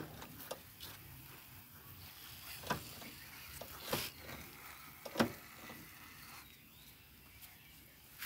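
Hand-pump pressure sprayer misting water onto potted plants: a faint steady hiss that dies away about six and a half seconds in, with three sharp clicks along the way.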